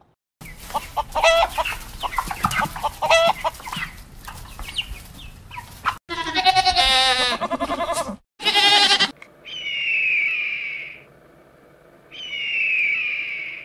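A string of farmyard calls, with chickens clucking and goats bleating in a long wavering bleat about six seconds in. After that come two falling, high screeches of a bird of prey, one around ten seconds and one near the end.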